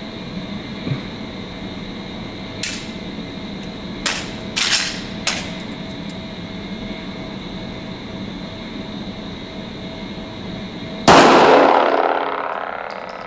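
A single 9mm Glock 17 pistol shot about eleven seconds in, ringing out with a long echo that dies away over about two seconds in an indoor range. Before it there are a few light, sharp clicks over a steady background hum.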